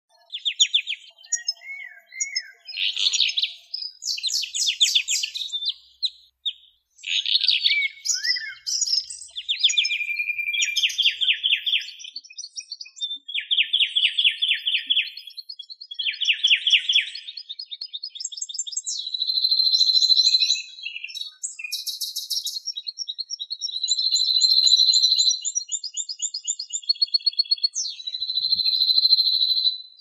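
Small songbirds chirping and singing fast high trills, one phrase after another, with longer steady trills in the second half. No low dove cooing is heard.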